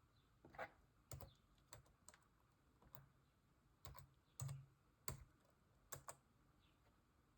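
Faint, irregular typing: about a dozen single key clicks on a keyboard, spread over the first six seconds.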